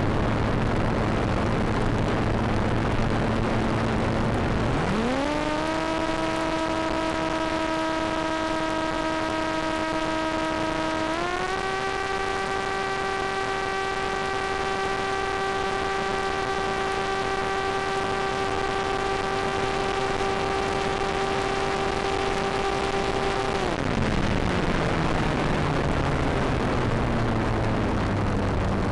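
Volantex Ranger EX's stock electric motor and propeller under throttle. A whine climbs sharply about five seconds in and holds steady, steps up a little in pitch about eleven seconds in, then winds down as the throttle is cut some five seconds before the end. A steady rush of air noise and a low hum run underneath.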